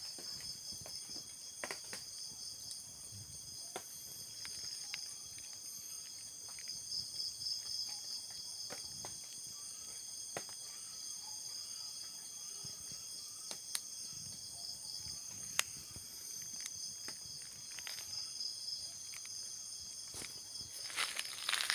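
Chorus of night insects: a steady, high-pitched trilling in several pitches, with scattered faint ticks. Near the end there is a louder rustle of steps through undergrowth.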